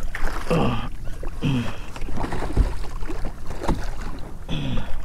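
A hooked red drum thrashing at the surface beside a kayak: water splashing and sloshing with a few sharp knocks, over a low rumble of wind on the microphone. Three times there is a brief, steeply falling exclamation from the angler.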